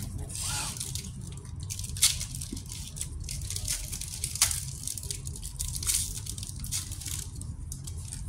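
Foil booster-pack wrapper crinkling and being torn open, with sharp crackles about two, four and a half and six seconds in, over a steady low hum.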